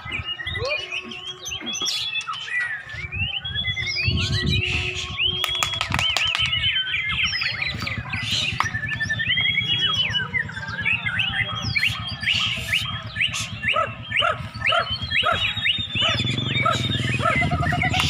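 Several white-rumped shamas (murai batu) singing at once from hanging contest cages, a dense run of fast, varied whistles, glides and trills that overlap. A low rumble sits underneath from about three seconds in.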